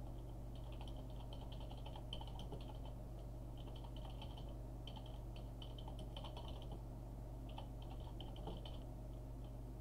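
Computer keyboard typing: rapid key clicks in four bursts with short pauses between them, over a steady low electrical hum.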